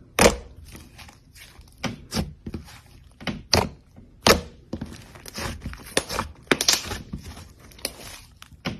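Slime being worked by hand, making irregular sharp pops and clicks, with a denser crackling stretch a little past the middle.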